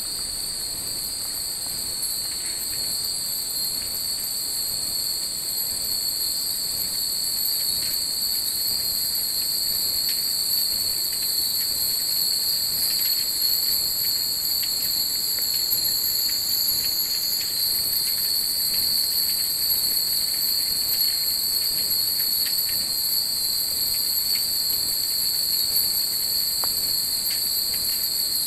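Steady, high-pitched insect chorus at night. Faint tinkling of Japanese wind chimes (furin) underneath, most noticeable in the middle of the stretch.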